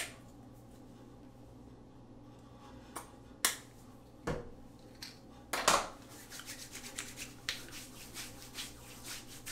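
A few clicks and knocks as an aftershave balm container is opened and handled. Then, from about six seconds in, quick soft rubbing as the balm is worked between the hands and onto the face.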